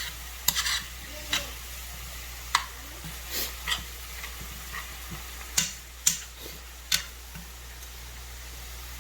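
Shaved steak and chopped hash brown potatoes sizzling in oiled frying pans, with a steady hiss broken by irregular clicks and scrapes of a utensil stirring against the pan.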